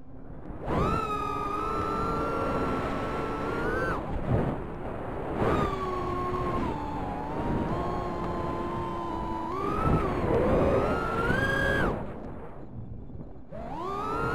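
Micro quadcopter's Emax 1106 brushless motors with three-blade props whining, the pitch rising and falling with throttle. The whine drops away briefly three times: near the start, about four seconds in, and for over a second near the end, as the throttle is cut.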